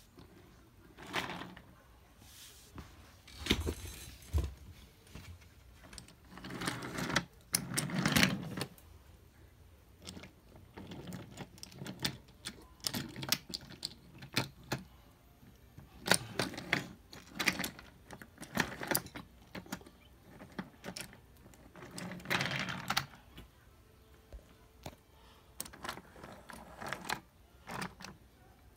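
Small toy train pushed by hand along wooden train track, clicking and rattling in irregular bursts with short pauses between.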